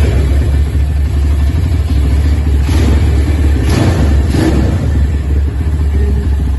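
Motorcycle engine running loudly close by, with two brief swells about three and four seconds in.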